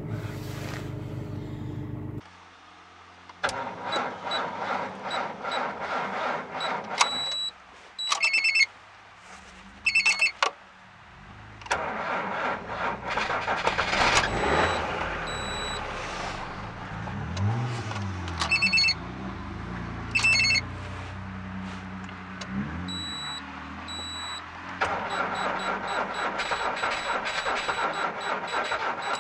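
A Volkswagen Touareg idles for about two seconds and cuts off. Then another car's engine is cranked by its starter in several long attempts of a few seconds each at about −34 °C without catching, with the dashboard warning chime beeping between attempts.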